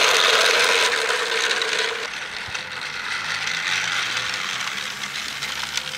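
Battery-powered toy train's electric motor and plastic gears whirring and rattling as it runs along plastic track. A steady tone over the whir is loud for about two seconds, then the sound drops and goes on more quietly as the train moves away.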